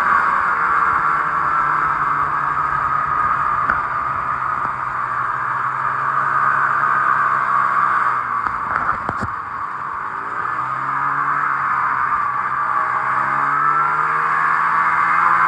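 Snowmobile engine running under way over snow. It eases off and drops in pitch about nine seconds in, then picks up speed again with a rising engine note.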